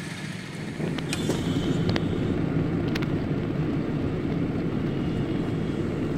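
A car driving along a road: a steady low rumble of engine and tyre noise that comes in about a second in, with a few faint clicks.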